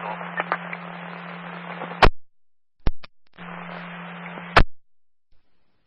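Police radio scanner with a transmission open but no voice: hiss with a steady low hum, cut off by a sharp squelch click about two seconds in. A couple of short clicks follow, then a second voiceless stretch of hiss and hum ends in another squelch click about four and a half seconds in.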